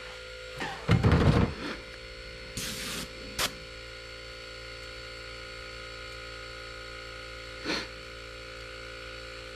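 Steady electrical hum, with a brief knock about a second in, a short hiss a little later and a light tick just after it.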